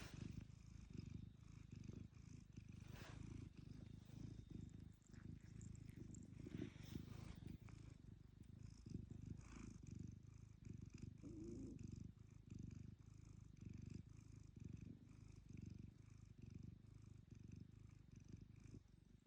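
A domestic cat purring softly and steadily while resting on a person's lap, a low, fine-pulsed rumble.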